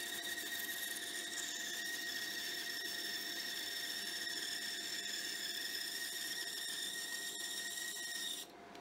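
Bandsaw cutting through a block of wood, a steady high-pitched whine over the running saw. Near the end the cut finishes and the whine stops suddenly.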